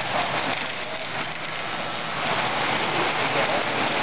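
Electric model trains running on the layout's metal track: a steady clatter and rumble of wheels and motors.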